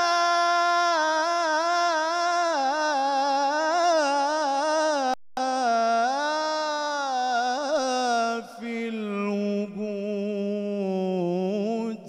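Male munshid singing an Islamic devotional song (inshad) in long melismatic phrases, the voice wavering through ornaments on a held syllable. It breaks off briefly about five seconds in, and the last few seconds are sung lower.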